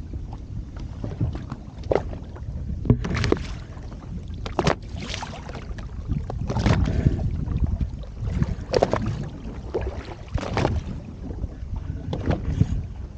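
Boat under way on open water: a steady low rumble of wind buffeting the microphone, with a sharp hit every second or two as the hull meets the chop.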